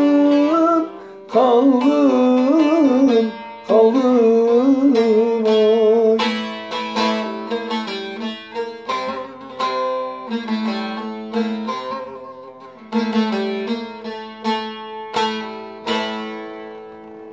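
Instrumental close of a Turkish folk song: a gliding, ornamented melodic line for the first few seconds, then single plucked string notes that ring out one after another and gradually fade away.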